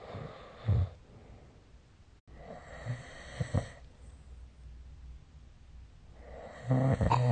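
Snoring: breathy in-and-out breaths with a few short, loud, low-pitched snores, one under a second in, a couple around the middle, and a longer one near the end.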